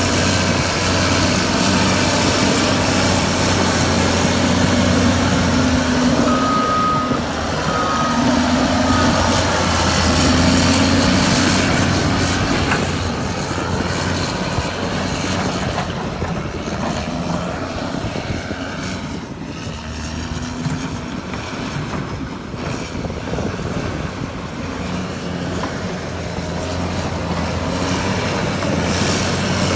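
Caterpillar D6R2 bulldozer's diesel engine working, with three short reverse-alarm beeps about a third of the way in. The engine eases off through the middle and builds again near the end.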